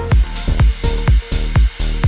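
Electronic dance music: a steady kick-drum beat kicks in right at the start, about two beats a second, with hi-hats between the kicks.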